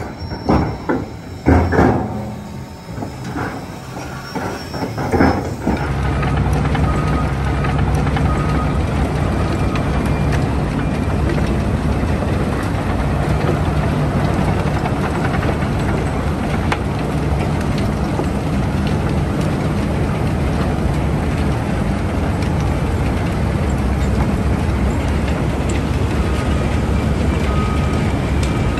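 Giant bucket wheel excavator at work: several loud metallic clanks and knocks over the first five seconds, then a loud, steady mechanical rumble and drone from about six seconds in as the bucket wheel digs.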